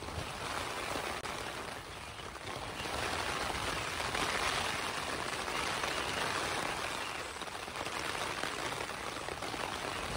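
Rain falling on a tent's nylon flysheet, heard from inside the tent as a dense, steady hiss that grows louder about three seconds in.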